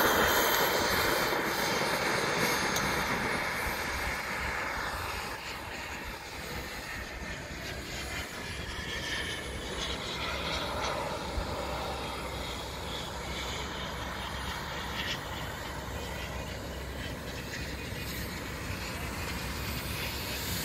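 Turbine engine of a large radio-controlled model jet, loud as the plane comes in to land and easing over the first few seconds to a quieter, steady running as it rolls out and taxis.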